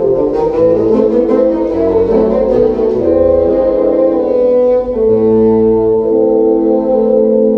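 Bassoon quartet playing a waltz: a low bass line stepping under moving upper parts, then about five seconds in the four voices settle on one long held chord.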